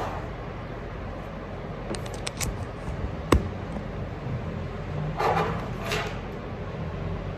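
Room background noise with a steady low hum, a few small clicks, one sharp tap about three seconds in, and a brief rustle about five seconds in.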